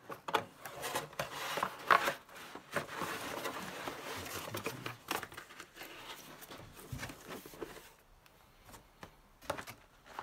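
Paper and cardboard rustling, with scattered light knocks, as software boxes, manuals and disc packs are handled; the sharpest knock comes about two seconds in and it goes quieter near the end.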